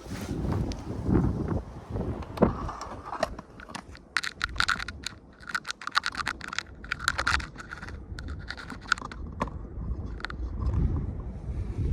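A phone scraping and clicking against the edges of a crack in a bunker wall as it is pushed in, with handling rumble on the microphone. A dense run of sharp clicks and scrapes comes from about four to nine seconds in.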